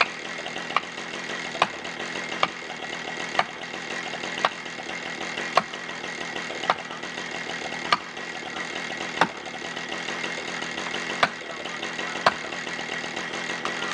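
Felling wedges being driven into a tree's back cut, sharp strikes roughly once a second, over a steady idling engine.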